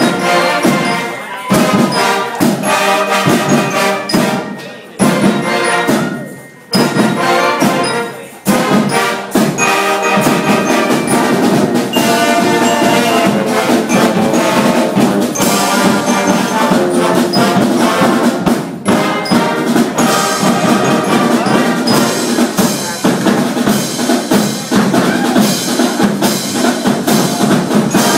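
Band music with brass and drums: a string of short accented chords with brief gaps between them, then continuous playing with the drums keeping time.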